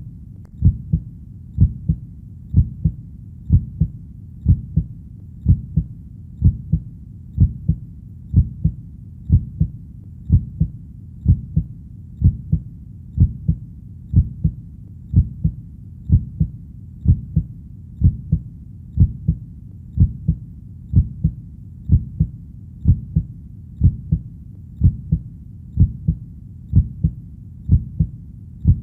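A slow, steady heartbeat, each beat a low double thump (lub-dub), at about one beat a second, over a low steady background rumble.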